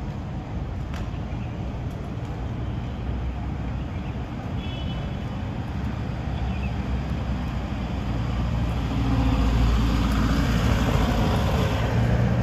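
Street traffic on a narrow city street: car engines running with a low hum. It grows louder over the last few seconds as a vehicle comes close.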